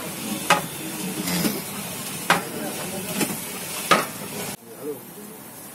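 Long metal ladle stirring oily gravy in a large aluminium cooking pot, knocking sharply against the pot's side four times over a steady sizzle. The sound cuts off suddenly about four and a half seconds in and stays quieter after that.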